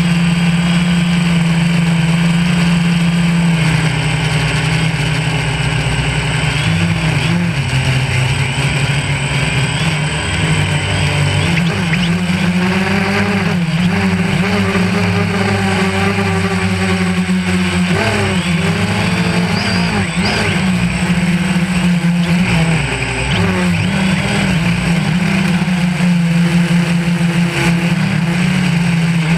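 DJI Phantom 1 quadcopter's motors and propellers buzzing loudly and steadily, the pitch stepping and wavering up and down as the motors change speed.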